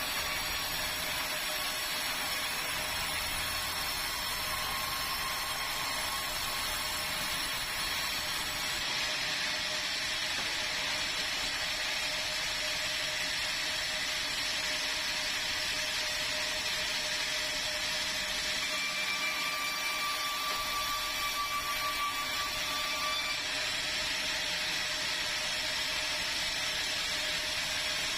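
Sawmill band saw running steadily while sawing meranti timber, a continuous high-pitched machine noise with a steady hum.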